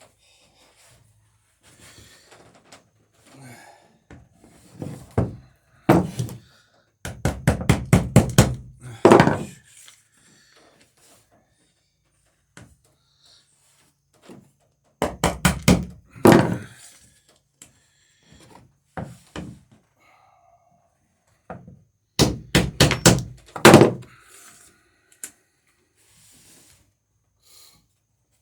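Hammer blows peening over rivets in the wooden planking of a dory, with a backing block held against the rivet heads on the other side. The blows come in several quick runs of sharp strikes, with pauses between.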